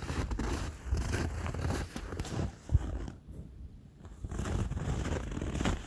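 Footsteps in well-packed snow on a hiking trail: irregular crunching steps, with a brief pause about halfway through.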